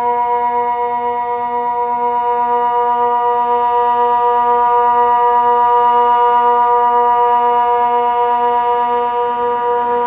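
Kockum Sonics Delta 4 electronic siren holding one steady, loud tone, a tone of the Swiss water alarm (Wasseralarm) signal.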